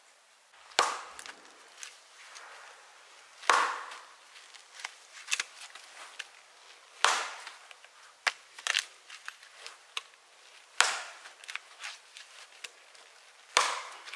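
Hatchet chopping into a log: five heavy strikes a few seconds apart, with lighter knocks between them.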